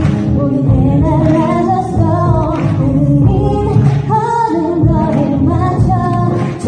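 Pop music with a lead voice singing over a bass-heavy backing track.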